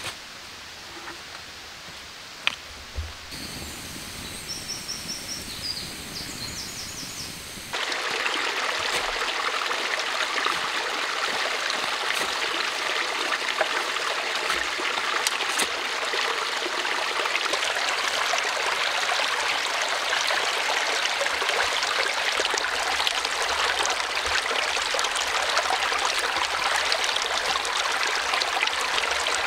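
Small forest stream running over stones, a steady rush of water that starts suddenly about eight seconds in. Before it, one sharp knock and a few short high chirps.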